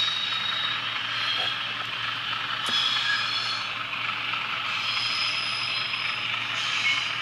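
Sound decoder in an N gauge Graham Farish Class 37 model locomotive playing its diesel engine sound through a small speaker as the model runs along the track. Thin high whistling tones come and go over it, and there is one short click partway through.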